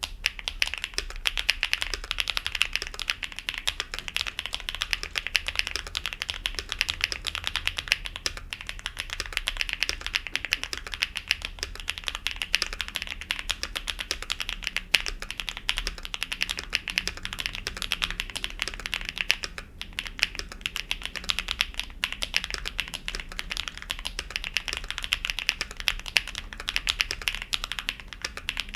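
Continuous fast typing on a mechanical keyboard with stock HMX Cheese linear switches in an aluminium case with a steel plate and no plate foam: dense, clacky keystrokes, with a brief pause about two-thirds of the way through.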